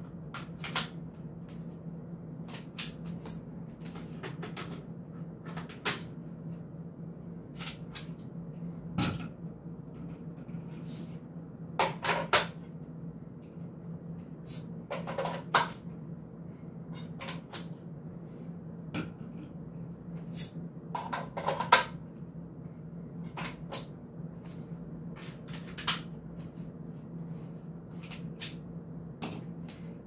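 Irregular clicks, clacks and knocks of camera support gear being handled and mounted: a slider and fluid video head set onto a tripod, quick-release clamps snapping and locking into place. A few denser runs of clacks stand out, the loudest about two-thirds of the way through.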